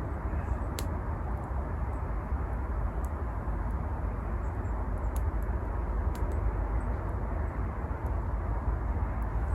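Steady low outdoor rumble with a handful of sharp, widely spaced crackles from a campfire.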